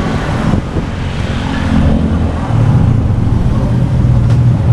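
A motor vehicle engine running with road and traffic noise, growing louder a little past halfway.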